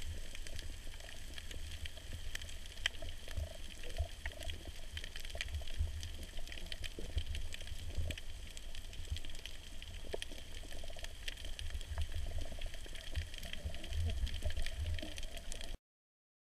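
Underwater ambience picked up through a camera housing: a low rumble of moving water with many scattered sharp clicks and crackles. It cuts off suddenly near the end.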